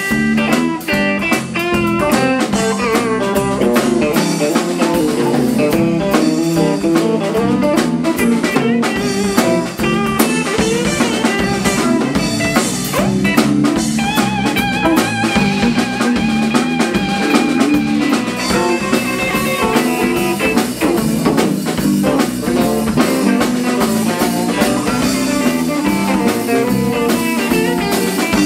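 Live blues band playing an instrumental stretch on electric guitars and drum kit, with a long held, wavering note in the middle.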